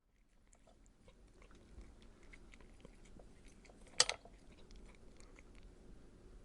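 A person eating a meal: soft chewing and small mouth and utensil clicks over a low hum, with one louder crunch about four seconds in.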